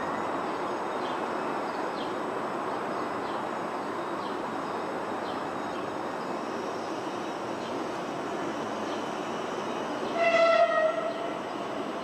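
A steady rumbling noise with faint chirps, broken about ten seconds in by one short horn-like tone, the loudest sound.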